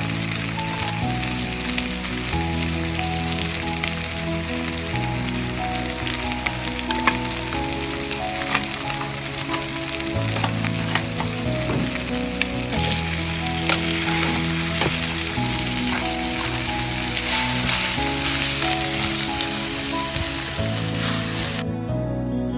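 Chicken pieces frying in oil with freshly added chili powder and chicken masala, a steady sizzle with a few sharp clicks, over soft background music. The sizzling cuts off suddenly near the end, leaving only the music.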